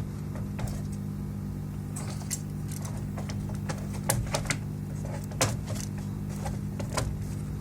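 Irregular clicks and taps of plastic and metal parts being handled while the power supply is fitted back into a PS5 console, a few sharper clicks near the middle, over a steady low electrical hum.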